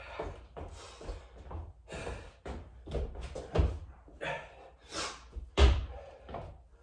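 Irregular thuds of hands and feet landing on the floor, with short noisy rushes of hard breathing, from a person doing burpees with push-ups and lunges. The loudest thud comes near the end.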